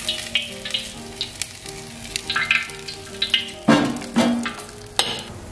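Shrimp and chive fritter frying in a wok of hot oil, sizzling and crackling, as a metal spatula scrapes under it and lifts it out. A little past halfway come a few loud clanks of the spatula against metal.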